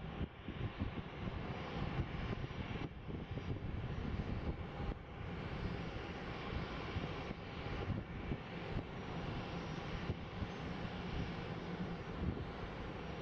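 Airbus A321's CFM56 jet engines running at taxi idle, a steady rushing engine noise.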